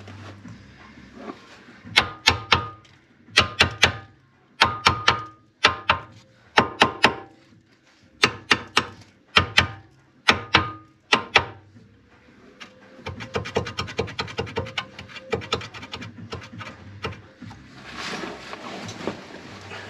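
Hammer striking steel to drive out a seized rivet from a riveted ball joint on a car's front lower control arm. The blows come in quick groups of three or four, each with a metallic ring. About two-thirds of the way in comes a faster run of lighter taps, and near the end a rustle.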